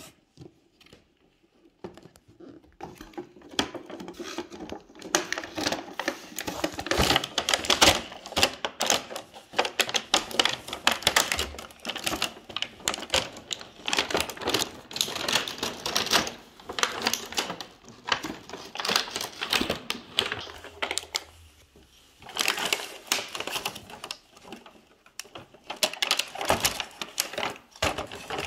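Toy packaging being opened and handled: cardboard box and clear plastic tray crackling, crinkling and clicking in a dense, irregular run that starts about two seconds in, with a short pause about three-quarters of the way through.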